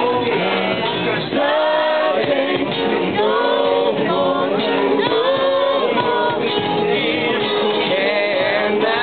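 Live band music: a singer over electric guitars and drums, with held, wavering sung notes.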